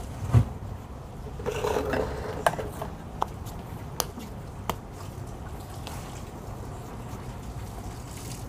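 Cooking handling sounds over a low steady rumble: a soft thump about half a second in, a short clatter, then a few sharp light clicks.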